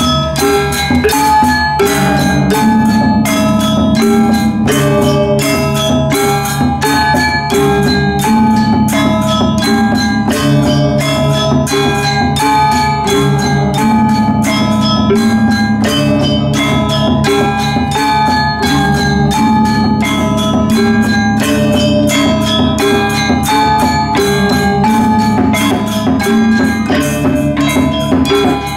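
Balinese gamelan playing continuously: bronze gangsa metallophones struck with mallets in fast, dense patterns over sustained low bronze tones, with a rapid clash of small ceng-ceng cymbals.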